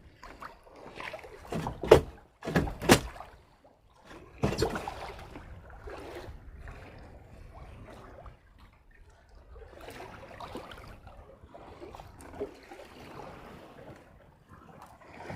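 Water sloshing and splashing against a small fishing boat, with a few sharp knocks or splashes in the first five seconds.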